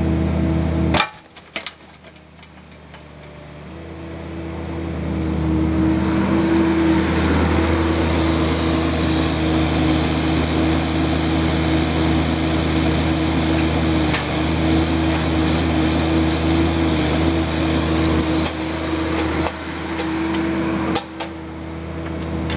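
Bobcat mini excavator's diesel engine running steadily under hydraulic load as the machine swings between the rock pile and the truck. A sharp knock about a second in is followed by the engine sound dropping low, then building back up over the next few seconds. A few short knocks come later on.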